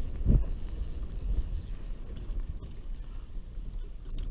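Low, steady rumble of wind and water around a small fishing boat at sea, with one dull thump just after the start.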